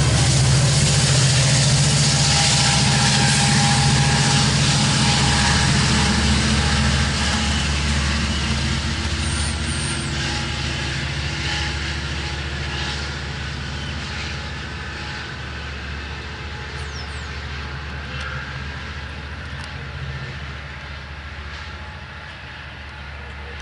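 Amtrak Capitol Corridor train with its F59PHI diesel-electric locomotive running, a low steady engine hum under wheel and rail noise, fading steadily as the train moves away.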